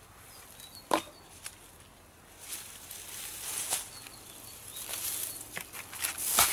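Dead branches being handled and stacked on a wood pile: a sharp knock of wood about a second in, then rustling through dry twigs and grass, with several more wooden knocks toward the end, the loudest just before it ends.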